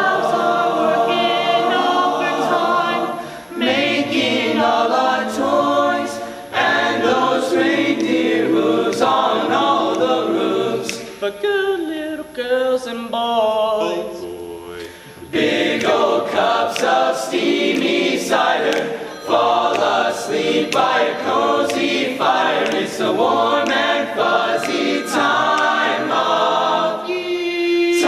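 High school show choir singing a Christmas song, many voices together, softer for a few seconds around the middle.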